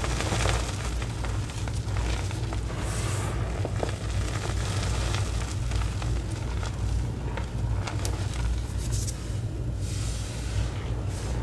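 Hands squeezing, rubbing and patting a heap of fine crushed gym chalk and cornstarch powder: a soft, continuous crunch and rustle of powder, with a few faint ticks, over a steady low hum.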